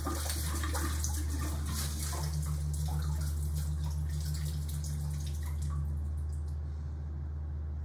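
Water pouring from a vase over hands and splashing into a kitchen sink, a steady splashing stream that thins out about six seconds in.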